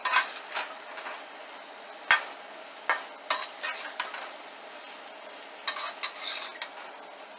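Metal spatula scraping and knocking against a frying pan as chopped ridge gourd with turmeric and salt is stirred, over a steady sizzle of frying. The strokes come irregularly, with one sharp knock about two seconds in and a quick run of scrapes near the end.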